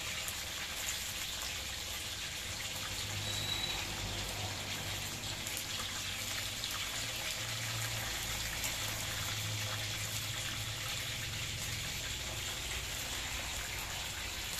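Battered chicken pieces deep-frying in a wok of hot oil: a steady sizzle, with a low hum underneath for much of it. The pieces are nearly cooked.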